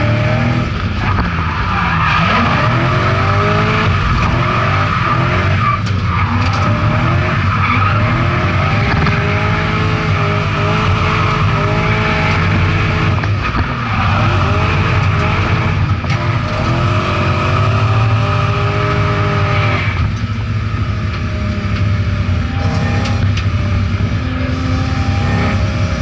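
BMW M60B40 4.0-litre V8 in an E30 Touring running hard under load through a homemade stainless-steel exhaust, heard from inside the stripped cabin. The tyres squeal in a series of long, bending squeals as the car drifts, thinning out over the last few seconds.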